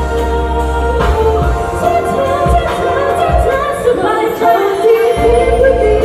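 Live Thai pop song: female vocals singing over amplified music through stage speakers, with a bass beat that drops away for a moment and comes back strongly about five seconds in.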